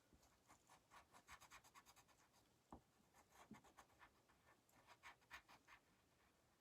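Faint scratching of colored pencil on paper in many quick, short strokes, as a drawing is colored in.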